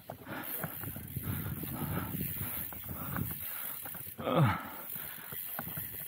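Mountain bike pedalled slowly up a dirt trail: tyres rolling over dirt and roots, with chain and drivetrain noise. About four seconds in there is a short sound that falls in pitch.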